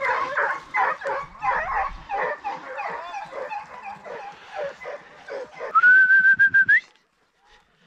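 A pack of hunting hounds baying and yelping in quick, overlapping short cries, as hounds do on a rabbit chase. About six seconds in comes a loud whistle, held for about a second and rising at the end, and then the sound cuts off.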